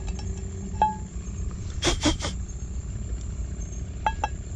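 A frying pan being handled and set on stones: a few light metal clinks and, about two seconds in, a short burst of scraping, over a steady low rumble.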